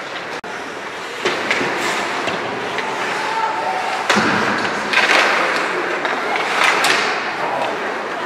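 Steady noise from a sports match, broken by several sharp thuds and knocks.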